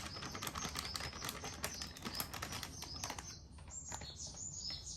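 Rapid light clicking of a kitchen utensil against a mixing bowl, thinning out after about three seconds, with small birds chirping in the background.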